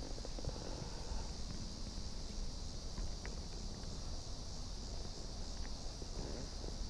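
A steady, faint chorus of insects, over a low rumble of wind and handling noise as a baitcasting reel is cranked, with a few faint ticks.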